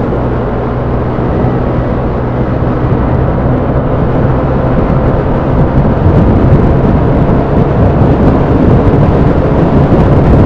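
Yamaha Aerox scooter at riding speed: a dense rush of wind on the microphone over the engine, growing a little louder from about four seconds in.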